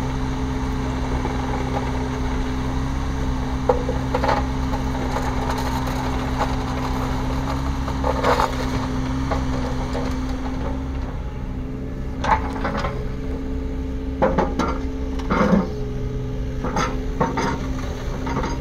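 Yanmar VIO20-4 mini excavator's diesel engine running steadily while the machine works its arm and bucket and swings its upper structure, with a higher whine that comes and goes. Sharp metallic clanks and knocks from the arm and bucket linkage come at intervals, more often in the second half.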